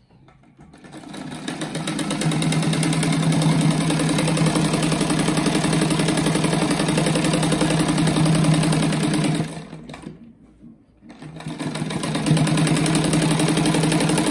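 Table-mounted sewing machine running steadily as it stitches a fabric binding strip along the edge of a patchwork rug. It speeds up over the first second or two, stops briefly about ten seconds in, then starts again.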